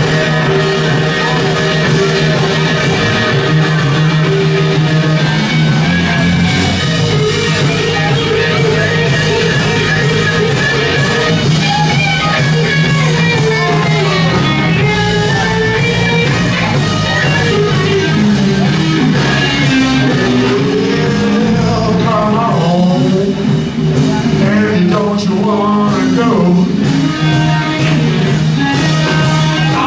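Live rock band playing: electric guitar over bass and a steady beat, with voices singing into the microphone. From about halfway through, the guitar plays a lead with long bending notes.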